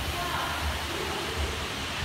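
Steady hiss of room noise with a low rumble pulsing under it.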